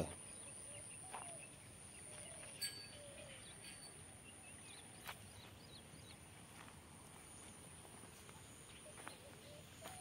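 Near silence: faint rural outdoor ambience with a steady high hiss, a few short, faint bird calls and a couple of soft clicks.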